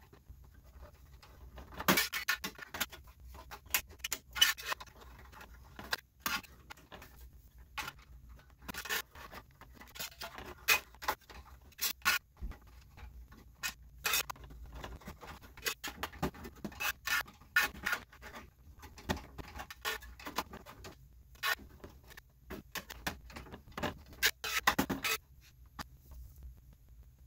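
Irregular small metal clicks, taps and scrapes as an Allen key loosens the CPU heatsink bolts on a 2010 Mac Pro's dual-CPU tray and the heatsinks are worked loose and lifted off.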